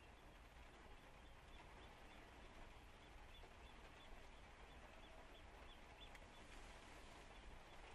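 Faint steady hiss of rain, with a run of soft, high chirps from a small bird repeating two or three times a second through most of it.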